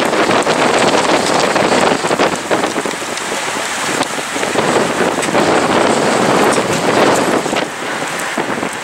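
Rain spattering on a surface close to the microphone, with gusting wind on the microphone that surges and eases every second or so.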